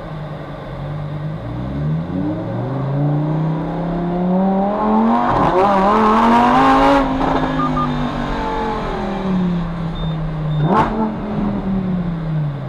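Lamborghini Huracán STO's naturally aspirated V10 heard from inside the cabin, accelerating hard with the revs climbing for several seconds, a brief dip partway for an upshift, then easing off. Near the end a sharp crack comes with a sudden jump in revs, a throttle-blipped downshift, before the note dies away.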